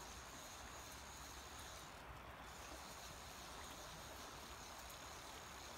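Faint, steady rush of river water flowing.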